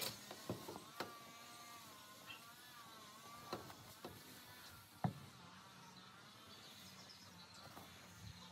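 Faint handling noise: a few knocks and taps as a sneaker is turned close to the phone, the loudest about five seconds in. Beneath it runs a faint wavering whine.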